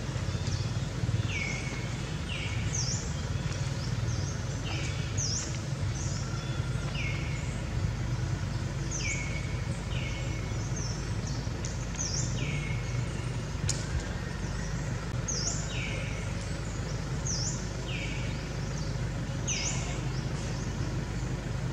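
A bird calling over and over, short high notes that sweep downward alternating with lower falling notes, one every second or two, over a steady low hum.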